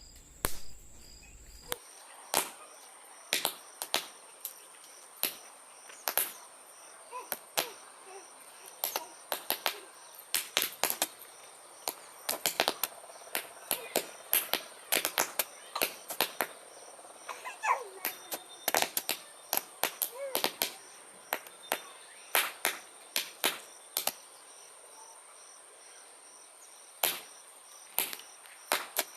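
Toy paper roll caps glued into a spiral coil, going off one after another as the burn works along the strip: sharp, irregular cracks, several a second, with a pause of a few seconds near the end.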